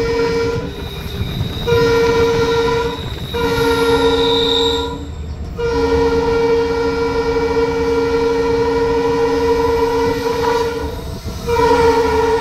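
EMD diesel locomotive's air horn, heard from inside the cab: a series of loud blasts at two steady pitches. It starts with a short blast and, after a pause of about a second, two blasts with a brief break between them. A long blast of about five seconds follows, and another begins near the end. Under the horn runs the steady low rumble of the moving locomotive.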